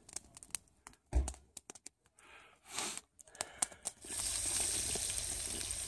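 Scattered clicks and light handling noises, then, about four seconds in, food starts sizzling steadily in a frying pan.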